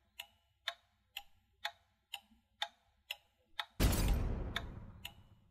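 Clock ticking steadily, about two ticks a second. About four seconds in, a single loud bang cuts in and dies away over about a second and a half while the ticking carries on.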